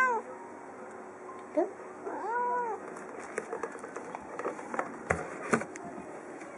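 Calico cat meowing to urge on its owner: a short rising chirp about one and a half seconds in, then a longer arched meow. After that, clicks and rustles as a cardboard box with plastic cushioning inside is handled.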